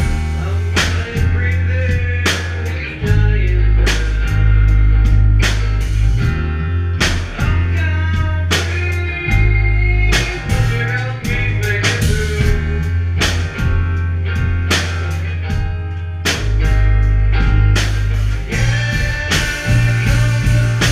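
Rock band playing live: electric guitar, bass guitar and drum kit. The bass holds long low notes that change every second or two under the guitar, with steady drum hits throughout.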